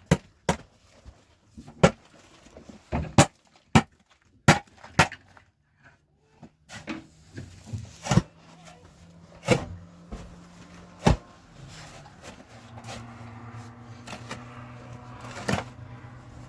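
About a dozen sharp, irregular knocks and strikes of manual building work, some in quick pairs. A low steady hum comes in about halfway through and continues under the strikes.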